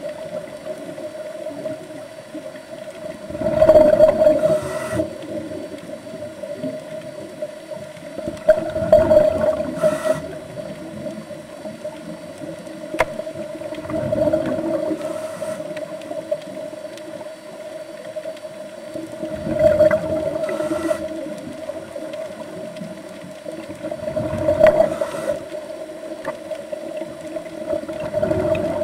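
Scuba breathing heard under water: bursts of exhaled bubbles from a regulator rush out about every five seconds, over a steady hum.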